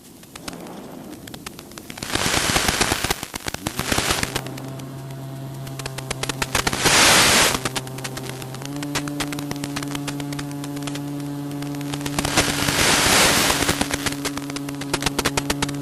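Steady buzzing of a small FPV drone's electric motors and propellers, with a crackle running through it. The buzz steps up in pitch about halfway through, and loud rushes of air noise swell three times.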